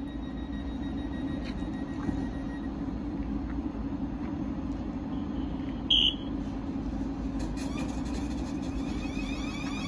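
Thameslink Class 700 electric multiple unit standing at the platform, its onboard equipment giving a steady low hum. A single short, high beep sounds about six seconds in.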